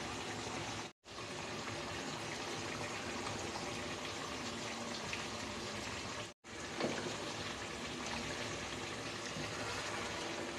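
Beef and spices frying in oil in a pot, with a steady sizzle. The sizzle cuts out completely for an instant twice.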